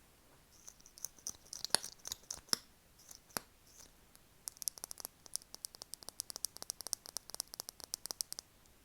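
Crisp, close-up ASMR clicking: a few scattered clicks and a short crackle in the first half, then a rapid run of quick clicks, several a second, that stops shortly before the end.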